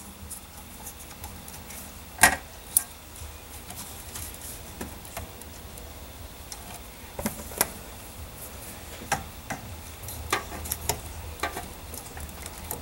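Scattered light clicks and taps of hands handling wires, connectors and small parts inside the open metal case of a plasma cutter.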